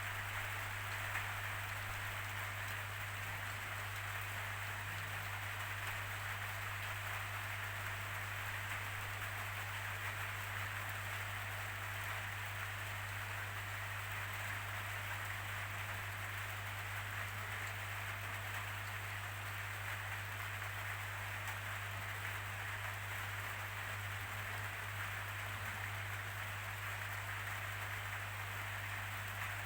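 Steady rainfall: an even hiss of rain with no gusts or breaks, over a constant low hum.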